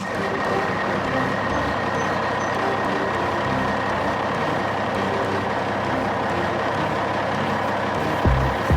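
Truck engine running steadily, with a faint steady whine over the noise. A few low thumps start near the end.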